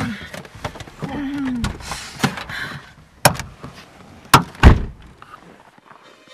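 Car door being opened and slammed shut: a sharp click, then two heavy thunks about a second later, the second one the loudest.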